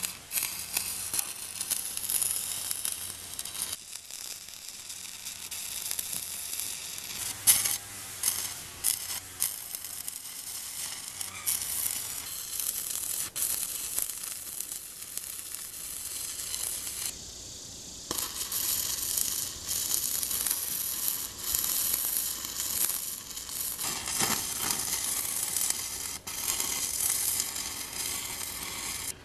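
Arc welding on steel: the arc crackles and sizzles in uneven spells, with a few short breaks where the arc stops and restarts.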